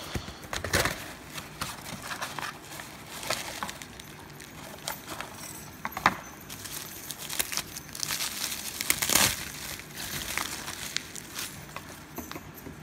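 Plastic bubble-wrap packaging and a padded mailer crinkling and crackling as they are handled and unwrapped, in irregular crackles and rustles.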